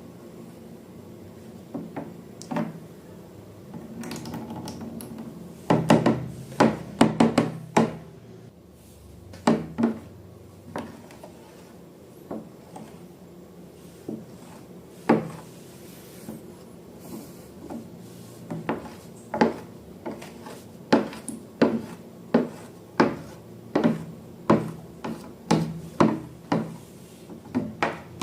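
Irregular knocks and taps of hard objects, some in quick runs, with some rubbing between them.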